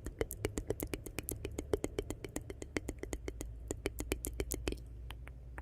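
Wood fire in a fireplace crackling: a dense run of sharp pops and snaps over a low rumble, thinning out near the end.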